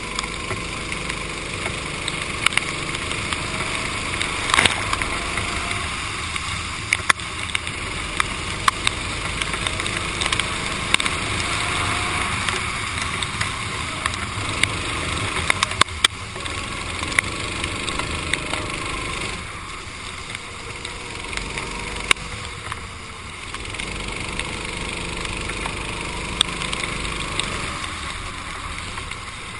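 Racing kart engine running at speed on a wet track, its note dropping for a few seconds about two-thirds of the way through as the kart slows, then picking up again, with a steady hiss of road noise and scattered sharp clicks.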